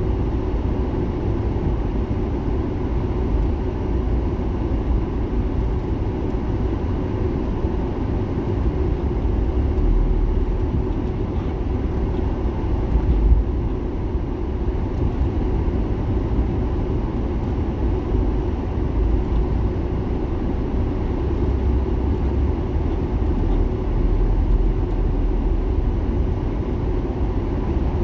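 Steady low rumble of a car driving slowly in city traffic: engine and tyre noise heard from inside the cabin, with a brief louder bump a little under halfway through.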